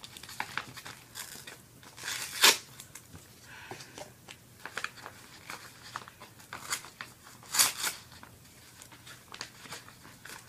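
Packaging being torn open and crinkled by hand: scattered crackles and short rips, with louder tears about two and a half seconds in and again near eight seconds.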